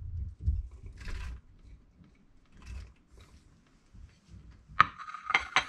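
Kitchen handling noise at a stovetop pot: scattered low knocks and short scrapes, then about five seconds in a sharp clink with a brief ring and a few more clinks, as a plate and utensils are handled against the pot.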